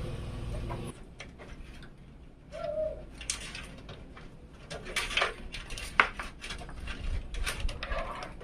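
Scattered small clicks, taps and rustles of hands handling PC parts, the sharpest about six seconds in. A low rumble stops about a second in, and a short low note sounds about two and a half seconds in.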